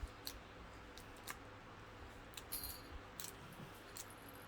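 Faint, scattered clicks and taps of a plastic baby toy being handled, about seven of them spread unevenly over a few seconds.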